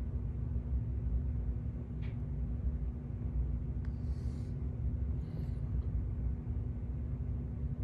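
Steady low hum and rumble of room noise, with a few faint, brief high sounds about two, four and five seconds in.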